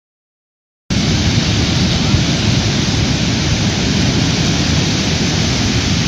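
Surf breaking on a sandy beach: a loud, steady rush of waves that starts about a second in, with a heavy low rumble.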